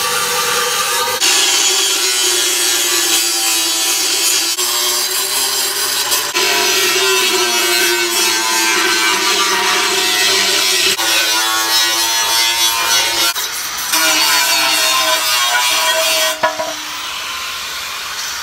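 Angle grinder grinding a metal bicycle frame. Its motor whine sinks and recovers as the disc bites, with a loud abrasive hiss above it. About two seconds before the end the grinding eases off and the sound becomes quieter.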